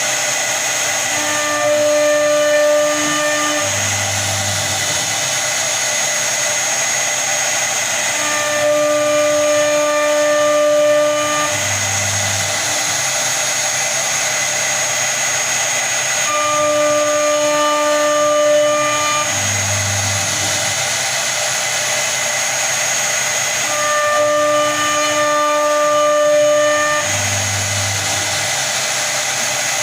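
CNC router cutting a design into a door panel: the spindle runs with a steady high whine and cutting hiss. A lower pitched motor whine, followed by a short low hum, comes back four times about every eight seconds.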